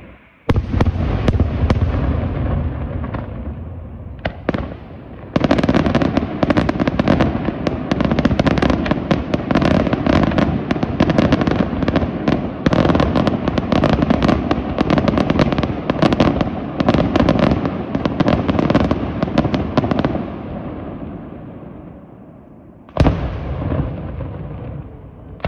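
Daytime fireworks display: a heavy bang about half a second in, echoing round the valley, then from about five seconds a long dense barrage of rapid bangs and crackling. The barrage dies away in echoes and is followed by one more single bang near the end.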